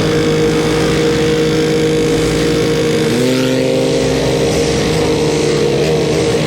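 ATV engine running steadily while riding, with a noisy haze over it and a slight shift in engine pitch about three seconds in.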